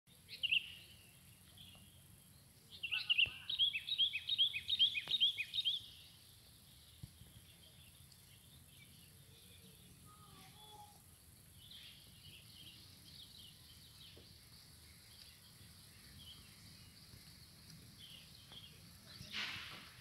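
Birdsong: a lively run of quick, repeated high chirps for about three seconds, starting about three seconds in, then fainter scattered calls, over a steady low background rumble. A brief rush of noise comes near the end.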